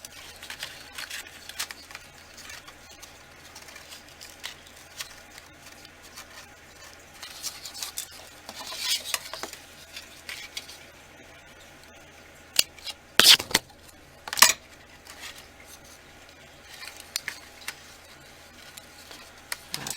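Cardboard pieces and tools being handled on a craft table: scattered light taps, clicks and rustles, with a few loud knocks about two-thirds of the way through as the camera is bumped.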